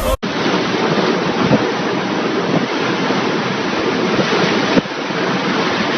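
Loud, steady rush of storm wind and heavy rain buffeting the microphone, with a short break about five seconds in.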